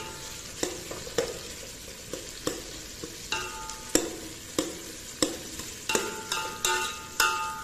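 Metal spoon scraping and knocking against a metal pot while stirring onions and tomatoes frying in oil, about a dozen strokes, the pot ringing briefly after each. A steady sizzle of the oil runs underneath.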